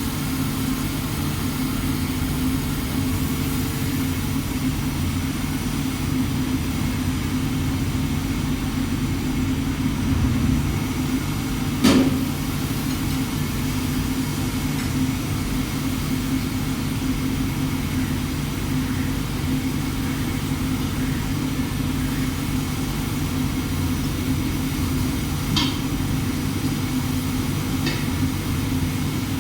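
CNC machine running with a steady low hum, with one sharp knock about twelve seconds in and two fainter clicks near the end.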